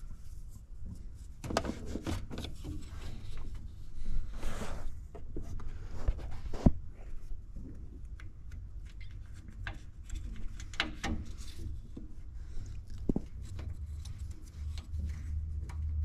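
Hand-handling noise of small scattered clicks, scrapes and rustles as a replacement hot-water NTC temperature sensor is fed and threaded by hand into its brass pipe fitting, with one sharper click about seven seconds in.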